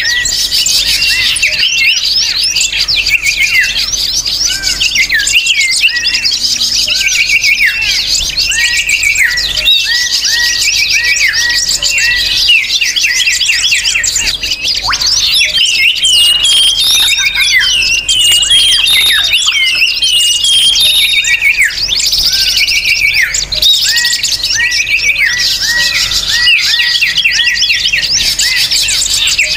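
A dense, noisy chorus of many small birds chirping and calling at once, with rapid overlapping chirps and quick falling notes that never let up: a bird-lure recording for drawing small birds in.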